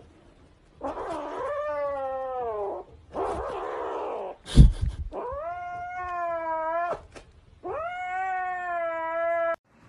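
Grey kitten giving long, drawn-out yowls, three of about two seconds each, with a rougher, rasping stretch between the first two. The kitten is guarding its plush toy as a hand reaches for it. A sharp thump about four and a half seconds in is the loudest sound.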